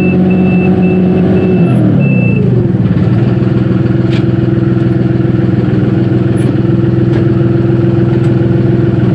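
Dongyang TX653 tractor's diesel engine running while a reverse-warning beeper sounds about twice a second. The beeping stops a little over two seconds in; the engine speed then drops and it runs steadily at a lower idle, with a few faint clicks.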